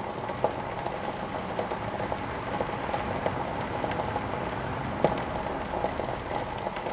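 Small mains transformer, submerged in water and overloaded with a shorted winding, humming steadily while scattered crackles and ticks come from the water around it as it heats.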